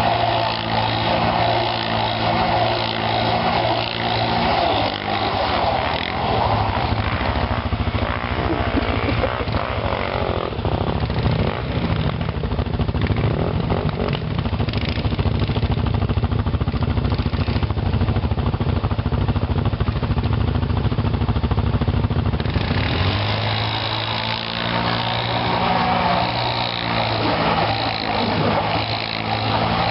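ATV (quad) engine running and being ridden, its pitch shifting with the throttle. From about ten seconds in it drops into a lower, rougher, denser sound, and a little past twenty-two seconds the higher, clearer note returns.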